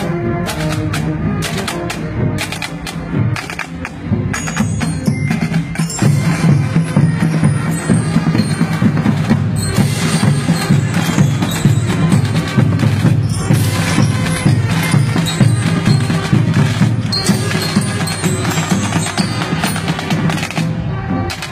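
Marching band playing, with snare drums, bass drum and brass. The drumming grows louder and denser about six seconds in.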